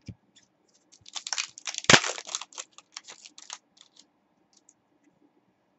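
Trading cards being handled and shuffled by hand: a quick run of crisp card clicks and crinkly rustles that peaks about two seconds in, then thins to a few faint ticks.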